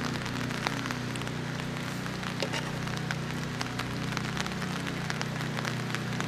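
Rain falling, with irregular sharp ticks of drops or drips, over a steady low hum.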